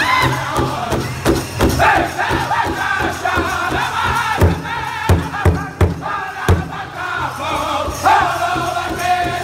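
Powwow drum group singing a grass dance trick song together in high voices while beating in unison on a large hide powwow drum. About halfway through, the steady drumbeat breaks into a handful of louder single strikes spaced apart, then the even beat returns.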